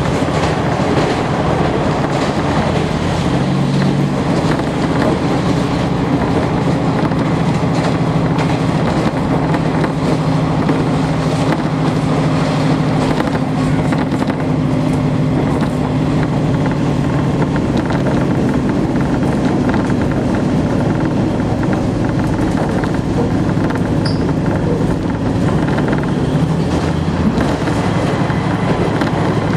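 KiHa 40-series diesel railcar heard from inside the passenger car while under way: its diesel engine runs with a steady low drone that comes in a few seconds in and fades near the end, over the running noise of wheels on the rails.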